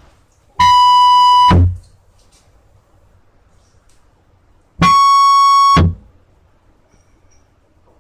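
Two buzzy electronic keyboard tones, each held about a second, the second a little higher than the first, played as an ear-copy of a Gifu Bus on-board sound effect.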